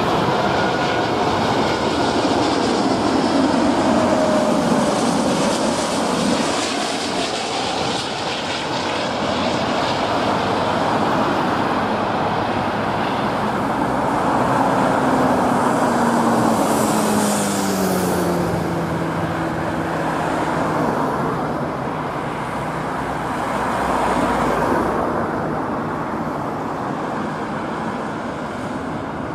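Airbus A380-841 landing, its four Rolls-Royce Trent 900 turbofans making loud continuous jet noise as it passes low and touches down. Engine tones drop in pitch twice as the aircraft goes by.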